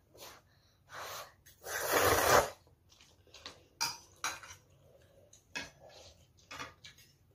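A child slurping ramen noodles, loudest a bit under two seconds in, followed by several sharp clinks of metal chopsticks and a spoon against the bowl.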